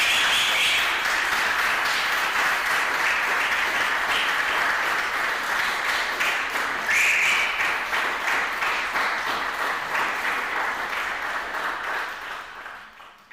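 An audience applauding, a dense patter of many hands clapping, fading out near the end.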